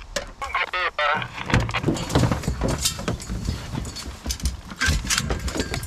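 Hounds whining with a wavering pitch in a truck-mounted metal dog box, then a run of metallic clanks and rattles from the box's latches and doors as they are worked open.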